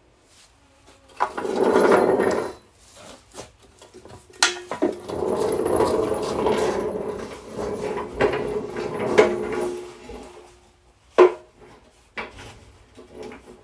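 Wooden boards being handled and slid about, making long scraping, shuffling noises with a few sharp knocks.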